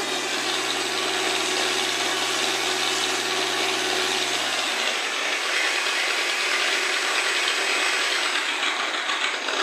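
Wright Cyclone radial engine of a North American T-28 Trojan running steadily with a loud, rough drone. Its low steady note steps down and falls away about five seconds in.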